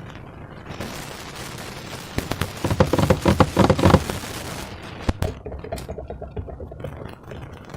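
Slime being squeezed and worked inside a balloon, giving a dense run of wet crackling pops. The pops build to their loudest about three seconds in, then thin to quicker, smaller clicks.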